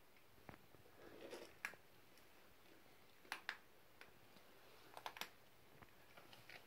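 Faint, scattered light clicks and taps over near-quiet room tone, some coming in quick pairs or small clusters.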